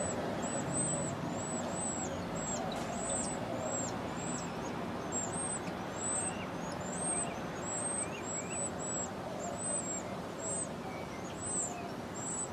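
A bird's high, thin chirps repeating about twice a second, with a few fainter, lower chirps among them, over a steady background noise.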